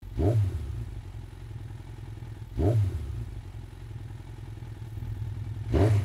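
Motorcycle engine idling with three quick throttle blips: one just after the start, another about two and a half seconds in, and a third near the end.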